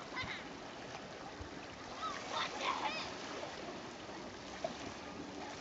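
Calm sea lapping and washing over flat, low shoreline rocks: a steady soft wash of water, with brief distant voice-like calls about two seconds in.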